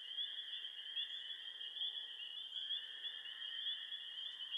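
Summer-night forest ambience: a steady, high-pitched chorus of calling animals, trilling in small repeated pulses at a low level.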